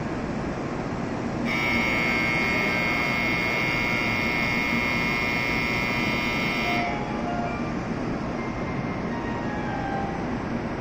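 A steady electronic departure warning buzzer sounds for about five seconds, starting a second and a half in, over the hum of a Shinkansen train standing at the platform; it signals that the doors are about to close for departure.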